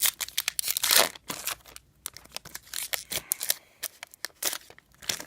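Foil trading-card pack wrapper crinkling and tearing, loudest about a second in, with light clicks and flicks of cards being handled.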